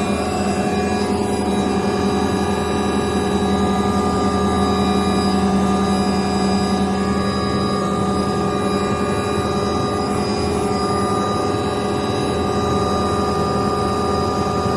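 Helicopter's turbine engine and rotor running steadily: a loud, even whine with several held tones over a rushing noise.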